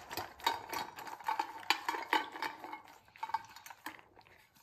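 A dog eating kibble from a bowl: quick, irregular crunching and clicking of the pieces against the bowl, thinning out and fading about four seconds in.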